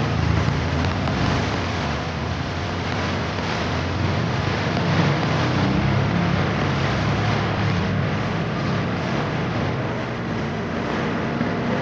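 Tour bus engine running with road and traffic noise, a steady low rumble.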